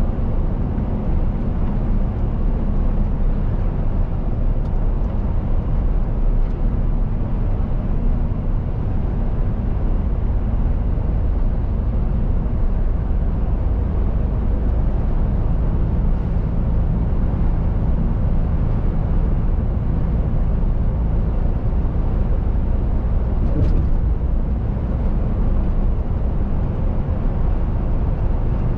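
Cab of a Mercedes-Benz Actros truck cruising at steady speed: a low, even engine drone mixed with road and tyre noise.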